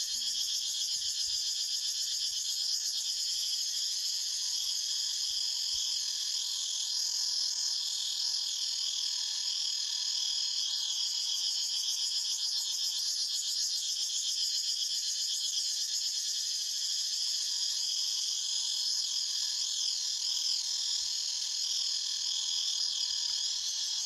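Chorus of cicadas buzzing steadily, a dense high-pitched drone that holds without a break.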